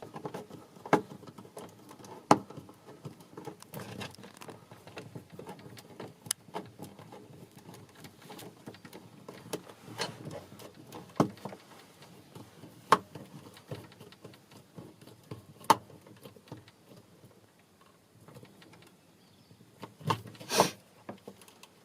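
Scattered sharp clicks and knocks of tools and parts being handled during electrical wiring work, with a louder clatter near the end.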